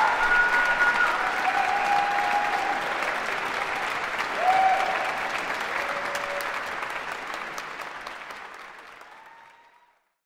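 Concert-hall audience applauding, with a few voices calling out over the clapping; the applause fades out toward the end.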